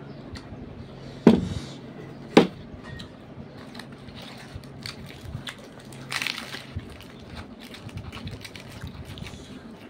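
Close-up eating sounds of fried puris being torn by hand and chewed, with many small wet clicks and crackles. Two sharp knocks come about a second and two and a half seconds in, and a short crackly burst about six seconds in.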